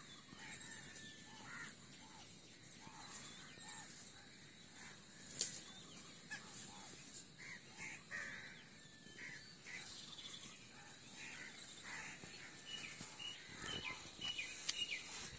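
Faint outdoor ambience of birds calling now and then, short scattered calls, with one sharp click about five seconds in.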